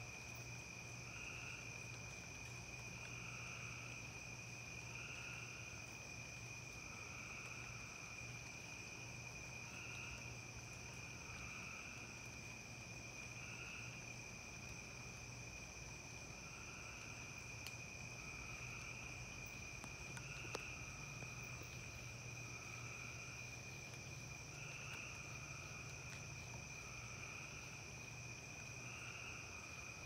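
Crickets and other insects trilling steadily in two high unbroken tones, with a lower pulsing call repeating every second or two. A faint low hum runs underneath, and two faint ticks come in the second half.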